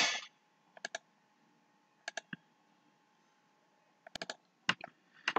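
Computer mouse clicks: short, sharp clicks in small groups of two or three, each pair a button press and release, scattered across a few seconds of quiet room tone.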